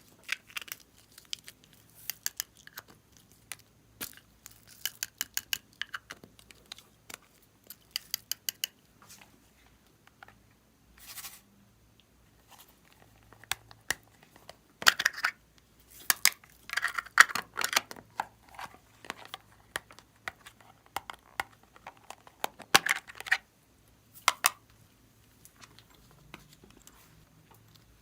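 Slime being pressed, stretched and worked by hand: clusters of sticky clicks and crackling pops, with short quiet gaps between handlings.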